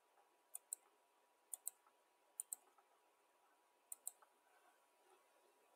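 Computer mouse clicking four times, each click a pair of quick ticks, against near silence.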